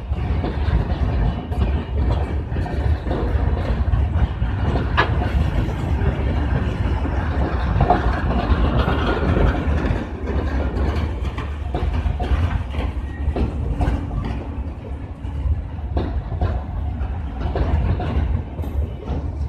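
Passenger coaches of an express train rolling past close by: a steady rumble of wheels on the rails, with sharp clicks as the wheels cross rail joints.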